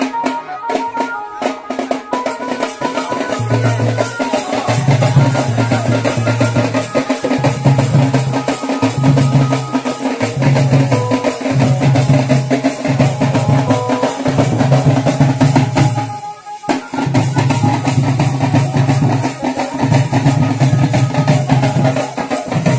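Several double-headed barrel drums beaten in a fast, driving dance rhythm, with a deep pulsing low note under the rapid strokes. The sound drops out briefly about two-thirds of the way through.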